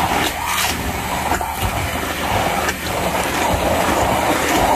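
Electric hand blender running steadily in a bowl, puréeing boiled taro leaves and green chillies into a thick paste.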